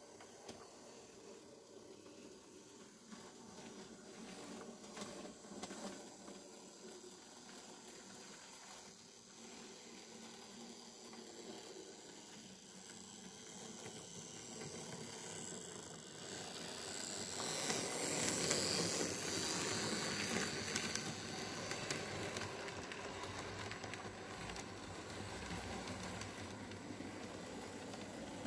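N-scale model electric locomotive running on the layout track, its small motor and wheels making a thin whirring hiss. It grows louder as the model approaches and is loudest about eighteen to twenty seconds in, as it passes close by.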